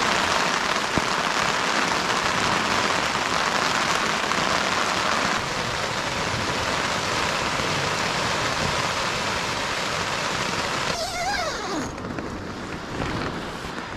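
Rain squall falling steadily, a dense even hiss. The hiss thins out about twelve seconds in, just after a short sound that slides up and down in pitch.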